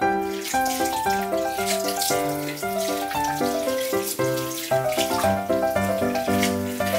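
Water poured in a stream into a glass tank, splashing steadily, over light background music with piano-like notes.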